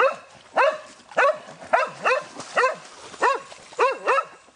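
A dog barking over and over, about nine short barks, each rising and falling in pitch, at roughly two a second.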